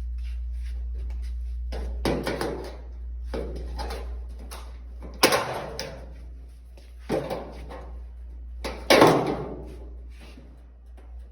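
Knocks, clatter and scraping as parts are handled during the dryer repair, with sharp knocks about five and nine seconds in, over a steady low hum.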